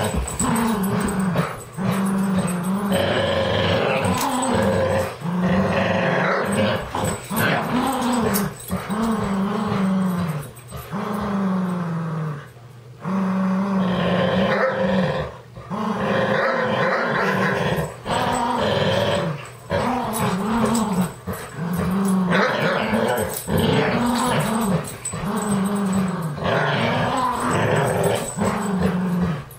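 Dogs growling in play while tugging a rope toy: a long string of drawn-out growls that rise and fall in pitch, broken by brief pauses.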